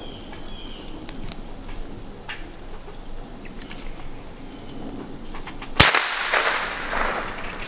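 A single shot from a Ruger 10/22 .22 rifle, one sharp crack about six seconds in, followed by a noisy rustle that lasts about a second and a half.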